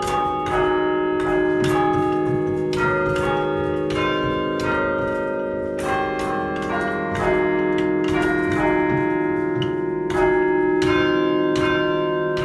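Church bells of a thirteen-bell chime cast by John Taylor & Co of Loughborough in 1939 being chimed: single bells struck one after another, about two strikes a second, at different pitches, each note ringing on and overlapping the next.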